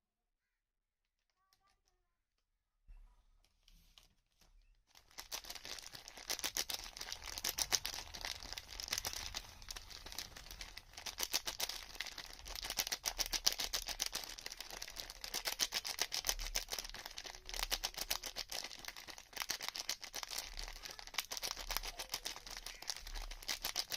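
Soap packaging being unwrapped: dense, continuous crinkling and tearing of wrapper material that starts about five seconds in, after a few seconds of near silence and a few faint ticks.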